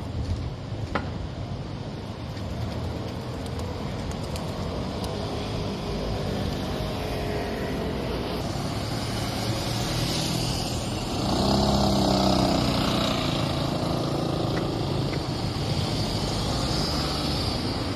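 Road traffic with a motor vehicle passing close by, its engine note rising and loudest about two-thirds of the way through, then easing off.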